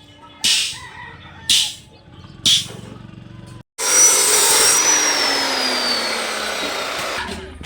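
Short, sharp strokes of work noise about once a second. Then, a few seconds in, a power tool running loud with a whine that falls slowly in pitch as it winds down.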